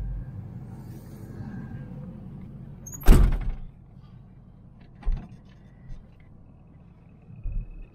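A car door slammed shut with one solid thump about three seconds in, followed by a few lighter knocks and clicks.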